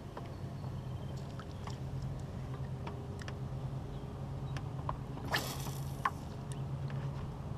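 Fishing rod and spinning reel being handled: scattered small clicks, a short whoosh about five seconds in, then a few more clicks, over a steady low hum.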